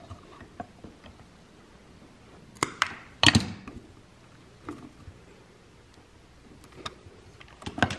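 Small clicks and knocks of wires and parts being handled in an open VFD enclosure during wiring, with a louder clatter of several sharp knocks about three seconds in and a few more ticks near the end.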